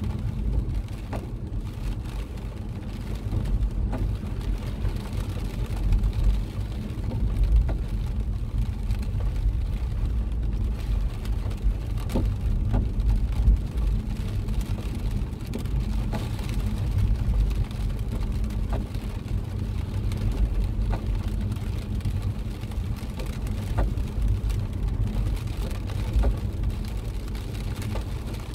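Steady low rumble of a car driving on a wet road, heard from inside the cabin, with scattered light taps of rain on the car.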